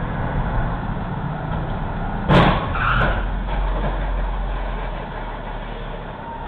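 Steady engine and road hum from inside a car, broken about two seconds in by a loud crash as a car ahead strikes a rider, with a shorter clatter of debris a moment later.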